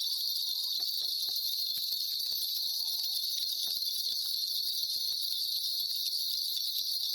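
Shaman's ritual bells shaken continuously, giving a steady, high-pitched, shimmering jingle with faint scattered clicks underneath.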